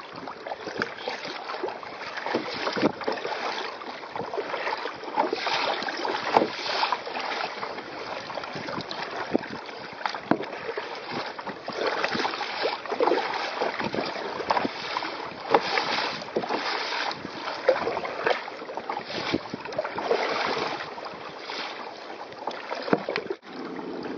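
Sea water slapping and splashing irregularly against a kayak's hull as it moves through choppy water.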